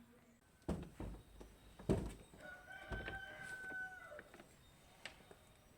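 A rooster crowing once, one long steady call that drops in pitch at its end, behind three loud sharp knocks about a second apart near the start.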